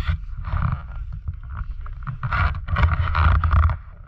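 Snowmobile running under way, with wind buffeting the microphone in uneven surges.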